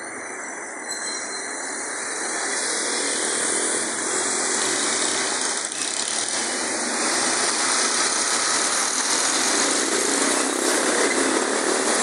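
A steady rushing roar of background noise that builds over the first few seconds and then holds level, with no clear separate events.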